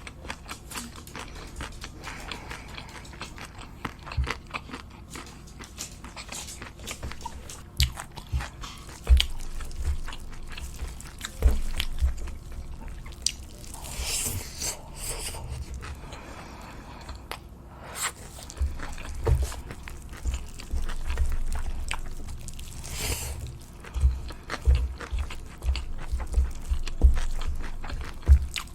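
Close-miked eating sounds: chewing with wet mouth clicks and many soft thumps, and louder crunching bites about halfway through and again near the end.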